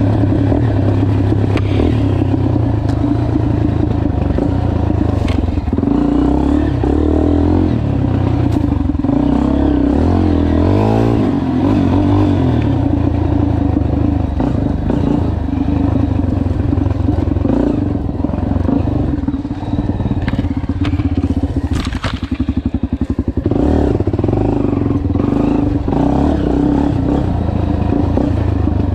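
Honda XRE 300's single-cylinder four-stroke engine running under a rider on a dirt trail, revs rising and falling, with a few sharp knocks.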